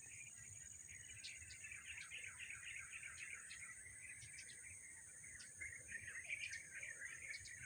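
Faint chorus of many birds chirping and twittering continuously, with short sharp higher chirps scattered through, over a steady high-pitched drone.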